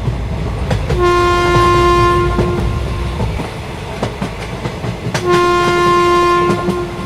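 A train horn sounds two long, steady blasts, one about a second in and the other about five seconds in. Beneath them runs the low rumble of a moving train, with the clickety-clack of its wheels over the rail joints.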